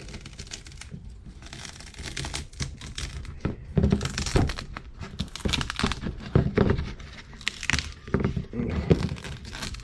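Plastic vacuum-bagging film being handled and pulled open by hand, with irregular crinkling and crackling throughout.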